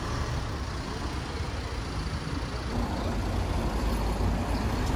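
Mercedes-Benz Sprinter minibus driving slowly past at close range, its engine running with a steady low rumble.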